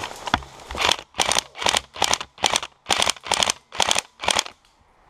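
Airsoft rifle firing about ten shots in steady semi-automatic succession, roughly three a second, after a single click.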